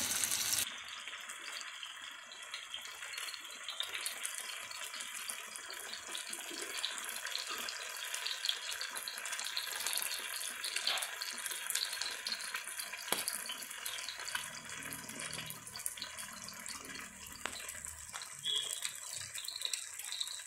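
Masala-coated fish steaks sizzling in oil on a dosa tawa: a steady hiss with scattered small pops and crackles, a little louder for the first half-second.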